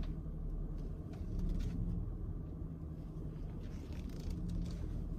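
Steady low rumble of a car heard from inside the cabin, with a faint even hum and a few light ticks.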